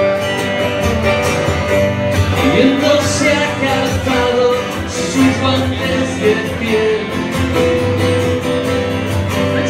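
Live acoustic guitars strumming a pop-rock song over the PA, an instrumental passage between sung lines.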